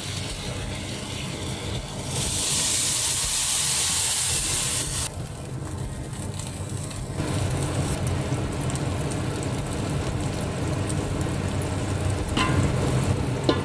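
Water poured into a hot wok of stir-fried green beans, with a loud sizzling hiss for about three seconds. After a short lull the wok settles into a steady, quieter sizzle as potatoes are added and stirred in, with a low hum underneath and a couple of sharp clicks of utensils near the end.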